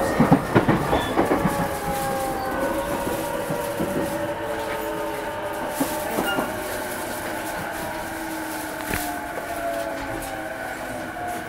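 Running sound of a JR East E233-series electric train slowing down: several whining tones from the traction motors fall steadily in pitch as it brakes for a station. Wheels clack over rail joints in the first second or two, and the running noise gradually eases.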